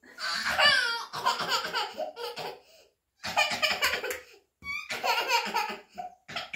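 A child laughing in several bursts, with short pauses between them.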